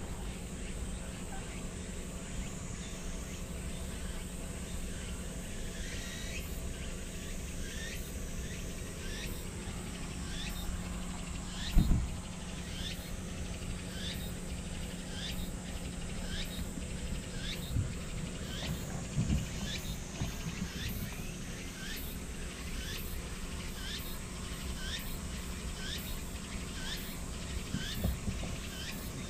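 An insect call repeating about once a second, each a short chirp falling in pitch, over steady outdoor background noise, with a few low bumps close to the microphone.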